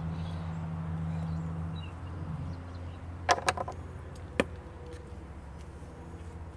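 A steady low hum with a few sharp clicks of tools or parts being handled, a cluster about three seconds in and one more a second later.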